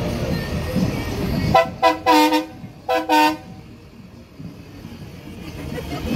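Vehicle horn honking four times in quick succession, in two pairs of short blasts.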